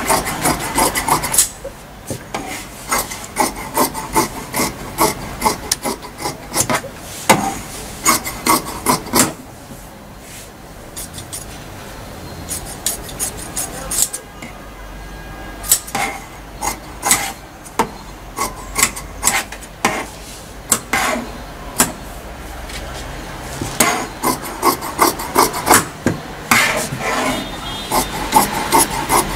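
Large steel tailor's shears cutting black tracksuit fabric: runs of crisp snips as the blades close again and again through the cloth, with a quieter stretch about halfway through.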